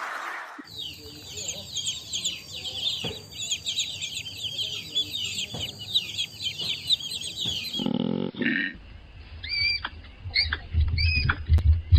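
Chickens calling: a dense run of rapid, high-pitched peeping calls. About eight seconds in, after a cut, comes a brief lower call, then a few separate high chirps.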